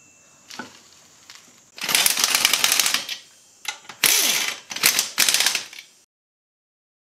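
Impact wrench hammering lug nuts onto a wheel hub in several short runs: the first is the longest, about a second, and three or four briefer ones follow.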